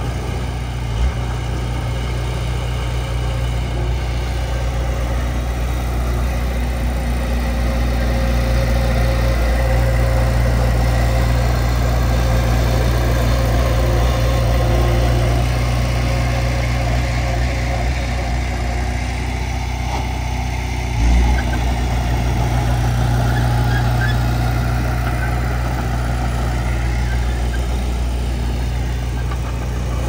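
Heavy earthmoving machine's diesel engine running steadily with a deep, constant drone, broken by two brief low thumps, one about a second in and one about two-thirds of the way through.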